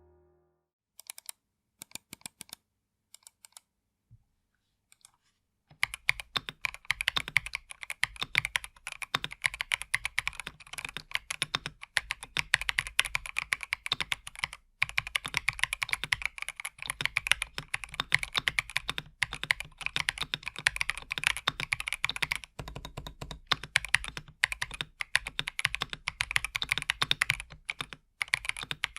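Epomaker EK68 65% mechanical keyboard, dampened inside with foam and a switch pad, being typed on: a few scattered keystrokes for the first several seconds, then fast continuous typing.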